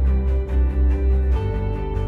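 Background music: sustained chords over a steady bass line with a quick, even rhythm on top; the chord changes about two-thirds of the way through.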